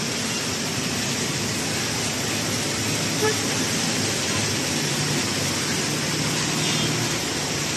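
Traffic on a rain-soaked street: cars and minibuses passing with a steady hiss of tyres on the wet road and a low engine hum. There are brief car horn toots, and a small knock about three seconds in.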